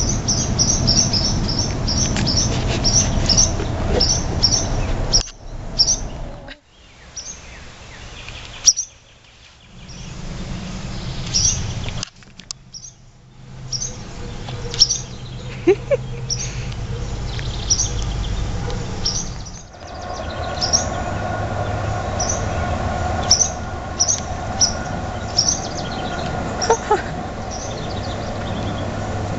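Barn swallows giving short, high-pitched alarm calls, a rapid run of them at first and then about one a second: the calls of nesting swallows mobbing cats and dogs near their nest.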